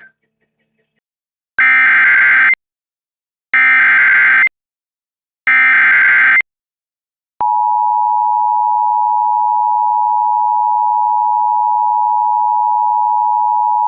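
Emergency Alert System SAME header: three bursts of data tones, each about a second long and two seconds apart. About seven seconds in, the two-tone attention signal follows, a steady loud pair of close tones that holds on. Together they mark the start of a new emergency alert.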